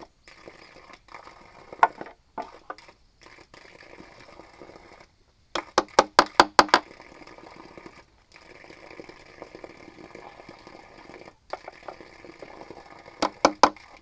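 Work on bamboo with hand tools: low scraping and rustling broken by sharp knocks, with a quick run of about eight knocks about six seconds in and a few more near the end.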